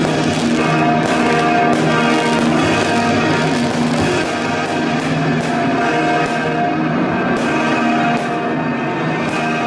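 Music with held chords and regular percussive hits.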